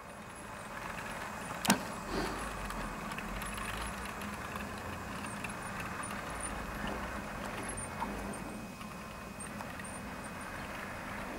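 Hornby OO gauge InterCity 225 model train (Class 91 locomotive with Mk4 coaches) running past on its track: a steady rolling rumble of wheels on rails over a low motor hum, with a sharp click about two seconds in.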